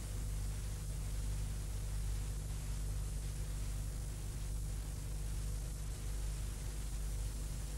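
Steady hiss with a low electrical hum on a blank soundtrack: the noise floor of an old archival film-to-video transfer after the music has ended.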